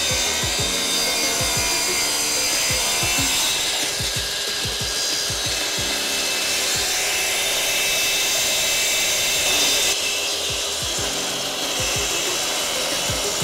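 Festool plunge saw running along its guide rail and cutting a strip of a few millimetres off the bottom edge of a wooden door: a steady motor sound over the rasp of the blade in the wood.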